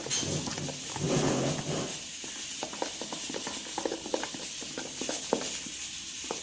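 A spoon clicking and scraping against a bowl while stirring a wet slime paste of shredded toilet paper and dish detergent, in small irregular taps, with a louder, denser stretch of stirring about a second in.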